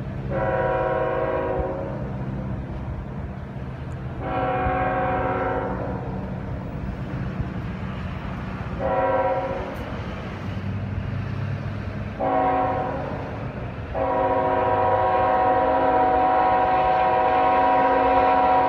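Norfolk Southern freight locomotive's air horn sounding the grade-crossing signal: two long blasts, a short one, then a long one that breaks once and is held to the end, with several tones sounding together. A steady low rumble of the approaching diesel locomotives runs underneath.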